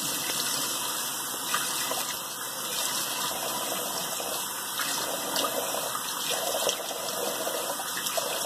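Cold water running from a bathroom tap in a steady rush, with irregular splashes as water is cupped onto the face to rinse after shaving.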